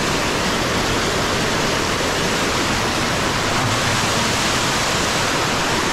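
Small waterfall pouring over rocks close to the microphone: a steady, unbroken rush of falling water.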